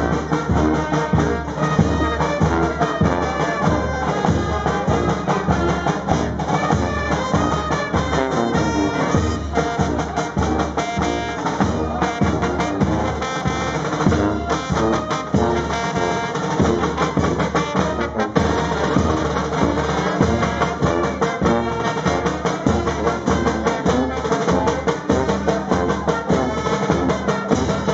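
Street brass band playing: sousaphone, trumpets and trombones over a bass drum and cymbals keeping a steady beat.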